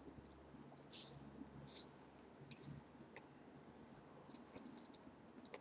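Faint eating sounds: scattered small mouth clicks from chewing a chili cheese dog, and the crackle of a foil-lined paper wrapper as fries are picked from it, busiest between four and five seconds in.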